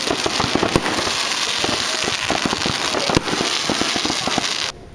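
Fireworks going off: a dense crackling hiss packed with sharp pops, with a few louder bangs about a second in and again near three seconds. The sound cuts off suddenly near the end.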